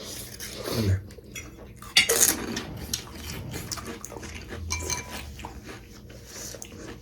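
Close-up eating sounds: mouth noises of chewing and slurping spicy pani puri and ramen, with a sharp noise about two seconds in and scattered clicks of utensils on dishes.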